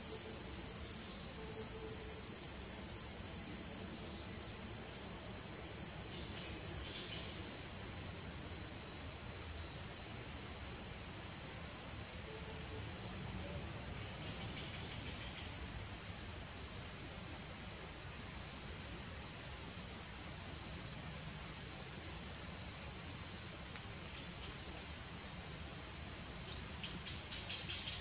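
Steady, high-pitched drone of an insect chorus, unbroken and even in level, with a few faint short chirps near the end.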